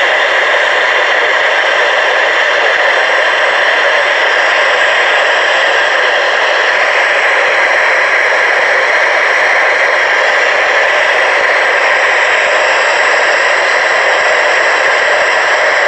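Steady, loud hiss of radio static from a receiver, even and unbroken, with no alert tones or voice in it.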